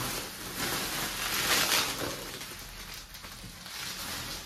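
Plastic bubble wrap crinkling and rustling as it is handled and lifted out of a cardboard box, loudest in the first two seconds and then fading.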